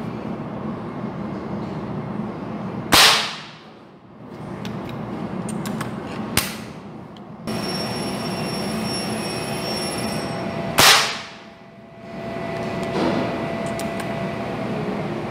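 Two air rifle shots about eight seconds apart, each a sharp crack that fades over about a second, firing 4.5 mm (.177) pellets through a chronograph at about 190 m/s. A smaller sharp click comes between them, over a steady background hiss.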